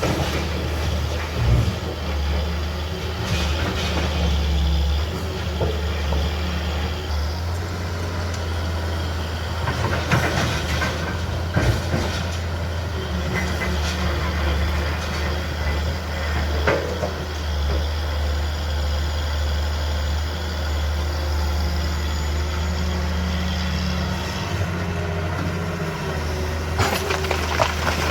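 Heavy diesel machinery engine running steadily, with scattered clanks and rattles every few seconds.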